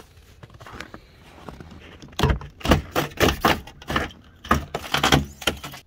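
Keys jangling and a truck's driver door being opened: a run of sharp knocks and rattles starting about two seconds in.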